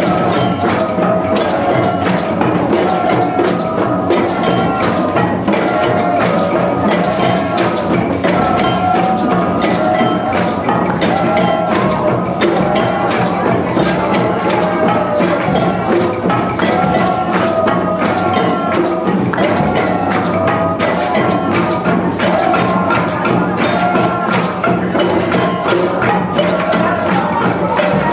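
Music: a steady run of quick percussive strokes under a wandering melodic line.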